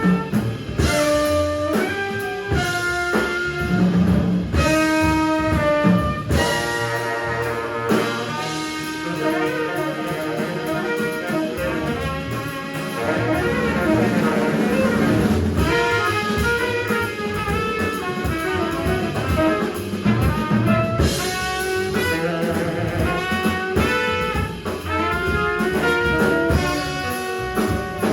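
Live small-group jazz: saxophone and trumpet playing lines over a drum kit, with many short held notes and busy drum hits throughout.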